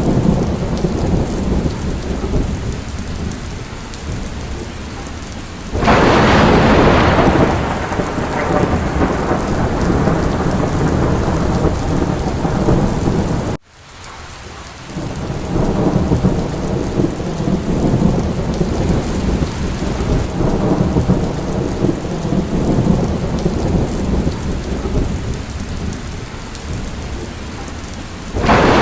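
Steady heavy rain with a thunderstorm: a loud thunderclap breaks in about six seconds in and rumbles away over several seconds, and another starts near the end. About halfway through the sound cuts out abruptly for a moment, then the rain swells back in.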